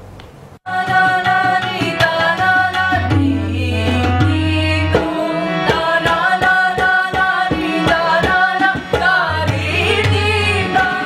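Hindustani classical music: tabla playing a quick run of strokes, with the low drum's deep ringing tones, under harmonium and singing voices. The music starts suddenly under a second in.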